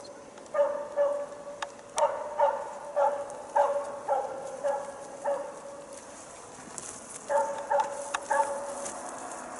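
A Jämthund (Swedish elkhound) barking at bay (ståndskall) at a moose, in an even series of barks about two a second, with a short break just after the middle. A few sharp snaps sound in between.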